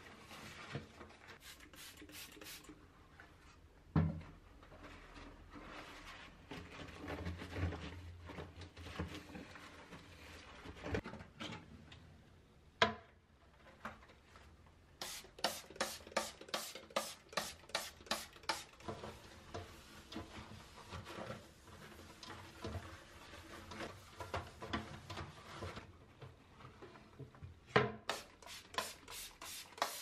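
Cleaning sounds in a small bathroom: a cloth rubbing and wiping a hard surface, with a few knocks, then a fast run of short spray-bottle squirts, about four a second, over a toilet bowl about halfway through and again near the end.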